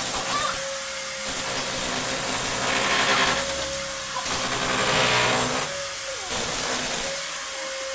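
Electric demolition hammer with a chisel bit hammering at old ceramic floor tiles and the bed beneath, chipping them up. It runs in bursts of a second or so with short pauses between.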